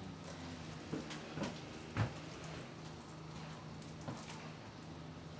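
Hands shaping a wet, egg-bound mince mixture into a burger patty: a few soft slaps and squelches over a steady low hum.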